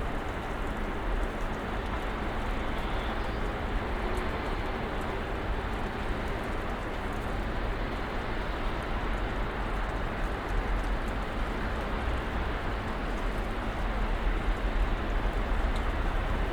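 Snowstorm ambience: a steady, even wash of noise with a low rumble underneath, getting slightly louder near the end.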